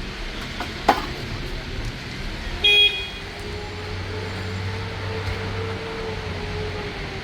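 Steady traffic noise with a short, sharp car-horn toot about two and a half seconds in, the loudest sound. A sharp click comes about a second in.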